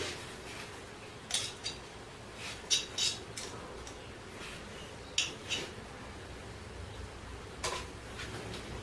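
Light clinks and paper rustles in a few short clusters, as a hand presses and wipes a wad of toilet roll around the finned cylinder barrel and pushrod tube of a BSA C15 engine that is not running.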